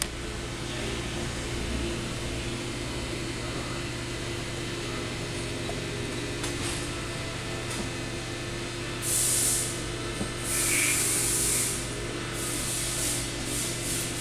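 Three short hissing bursts, about a second each, starting about nine seconds in, over a steady low hum.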